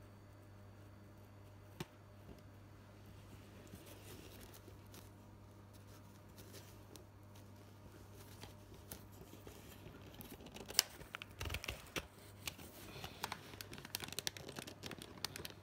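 Faint, irregular crackling and scraping of hands handling things at a table, thickest in the last five seconds, with one sharp click about two seconds in, over a steady low hum.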